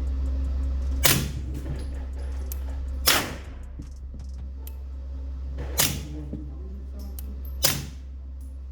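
Four suppressed gunshots from a semi-automatic firearm, spaced about two to three seconds apart, firing a mixed magazine of supersonic and Norma subsonic rounds. Each is a short sharp report with a brief ring after it.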